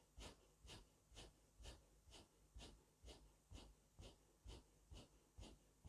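Faint, rapid, rhythmic forceful breathing, about two breaths a second: the 'Allah–Hu' breath of zikr-e-khafi, directed at the heart (qalb).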